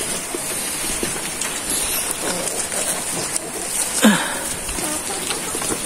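Steady rain falling, an even hiss throughout, with a few faint knocks and one short sound that falls in pitch about four seconds in.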